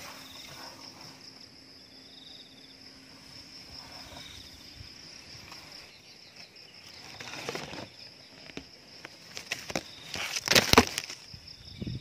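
Steady high insect drone with a short buzzy trill repeating every couple of seconds. About seven and a half seconds in, and louder at ten to eleven seconds, mango leaves rustle and scrape against a camera on the tip of a bamboo pole as it pushes into the tree.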